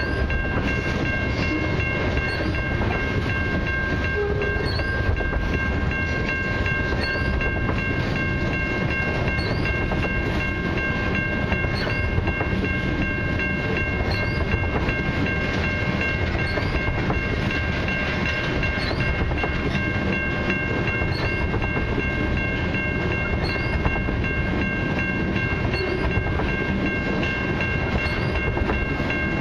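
Freight train of tank cars rolling past close by: a steady rumble of steel wheels on rail, with a steady high-pitched ringing tone held above it.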